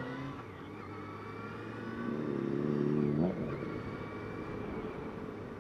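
Motorcycle engine running under way at road speed; its note swells about two seconds in and drops away suddenly a little after three seconds.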